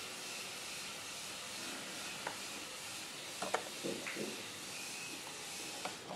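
Steady background hiss, with a few soft clicks of plastic LEGO pieces being handled, clustered around the middle.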